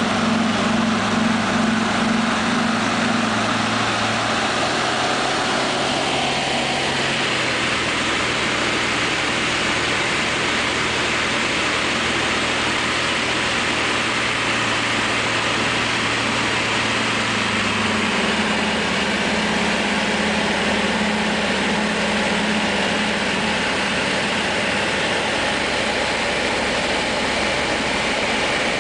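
Kitfox IV light aircraft's engine and propeller heard from inside the cockpit, with a steady roar of wind and propeller noise. The engine note drops a couple of times as power is reduced while descending to land.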